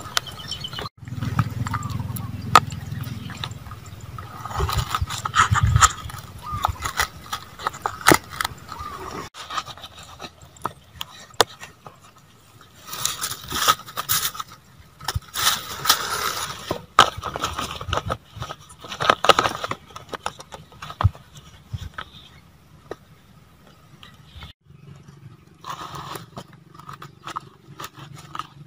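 Fresh banana leaves rustling and crackling as they are folded into a parcel and tied with a strip of banana-stalk fibre, in an irregular run of scrapes and sharp crinkles.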